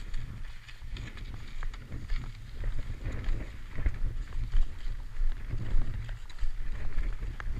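Wind buffeting the camera microphone during a ski descent, a fluttering low rumble, with skis scraping and chattering over snow in short sharp ticks and hiss.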